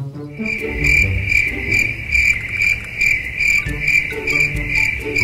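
Background music with a high, cricket-like chirping that pulses about twice a second, starting abruptly just after the beginning.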